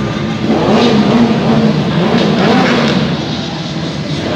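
Superbike engine revved in a series of throttle blips, its pitch rising and falling several times, over the hubbub of a crowd.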